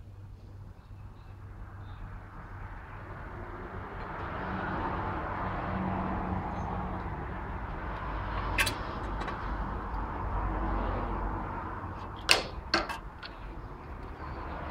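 A broad whooshing noise swells over a few seconds, holds and eases off, over a steady low hum. Near the end come a few sharp clicks and knocks as the starter cord is wound onto the generator's starter pulley for a hand start.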